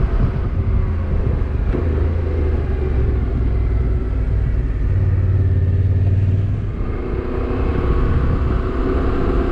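Motorcycle engine and road noise while riding, the engine note climbing in steps through the first seven seconds and then easing off.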